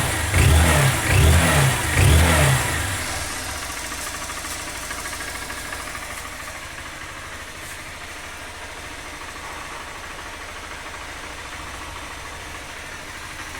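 Honda CG 160 motorcycle's single-cylinder four-stroke engine revved in a few quick throttle blips, then settling to a steady idle for the rest of the time. It runs smoothly with no mechanical noise, now that the worn camshaft bearing has been dealt with.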